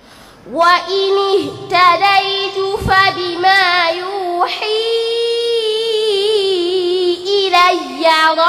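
A young girl chanting Quran recitation into a microphone in the melodic, drawn-out tajwid style. Her voice comes in about half a second in and moves through wavering, ornamented phrases, with one long held note in the middle.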